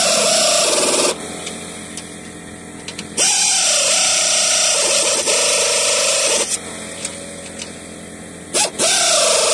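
Power tool spinning a nut down the front bolt of a Hellwig 2002 traction spring. It runs in three bursts: one stops about a second in, another runs from about three to six and a half seconds, and the last starts near the end. Each time the motor's pitch drops as it loads up, with the nut being driven until it bottoms out on the threads.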